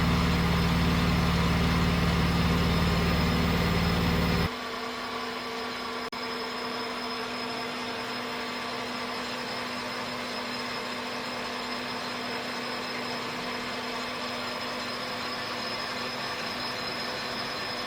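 Hasegawa HPL-90 small lathe running on test, a steady machine hum with several fixed tones. About four and a half seconds in the sound drops abruptly to a quieter, steady hum with its deepest tones gone, and a faint click follows a little later.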